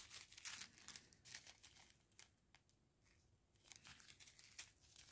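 Faint crinkling of small plastic bags of square acrylic diamond-painting drills being handled, in two spells of soft crackles, the second starting about three and a half seconds in.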